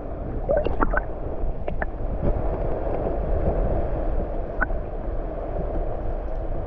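Muffled gurgling water noise heard through an underwater camera held below the surface, with a few light clicks in the first two seconds and another about two-thirds through.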